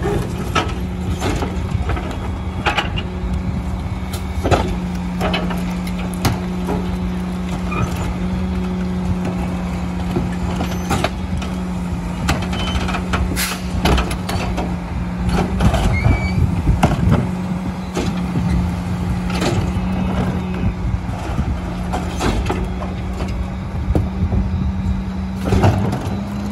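Split-body rear-loading garbage truck running with a steady hum while its cart tipper and hopper are worked, with repeated irregular clanks and bangs as wheeled trash carts are tipped and knocked against the hopper.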